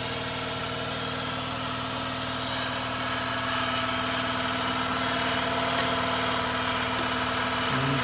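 Mazda RX-8's Renesis two-rotor rotary engine idling steadily after a flooded start, still burning off the excess fuel. A single short click sounds about six seconds in.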